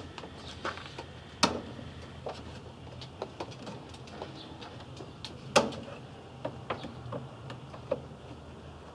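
Scattered light clicks and knocks of metal parts and tools being handled at a workbench, with two sharper knocks, about a second and a half in and again a little past the middle, over a faint steady low hum.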